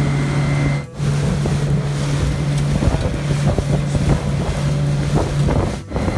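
Suzuki outboard motor running at cruising speed with a steady low drone, over the rush of water and wind buffeting the microphone. The sound drops out briefly about a second in and again near the end.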